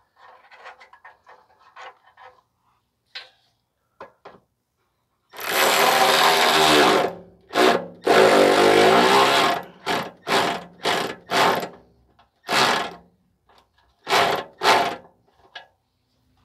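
Power tool driving a nut onto an exhaust heat shield stud. It runs twice for a second or two, then in a string of short pulses, with the nut spinning on the stud instead of tightening. Before that, faint clinks and rustling as the parts are handled.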